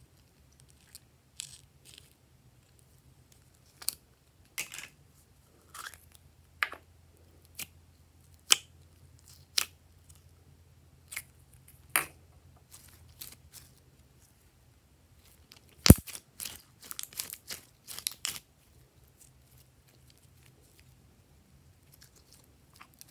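Scattered clicks and short crinkly crackles from a plastic globe-shaped container of green glitter slime being handled and turned in the hands, with one sharp snap about sixteen seconds in followed by a quick run of crackles.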